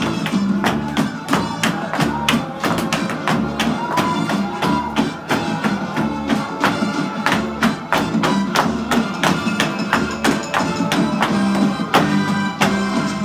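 Upbeat dance music with a fast, steady beat of sharp percussive strokes over pitched instruments.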